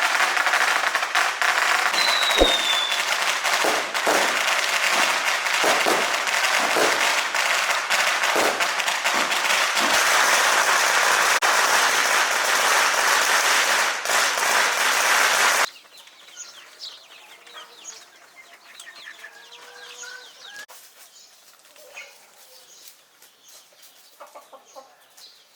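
A loud, even rushing noise cuts off suddenly about fifteen seconds in. After it, chickens cluck softly in short calls.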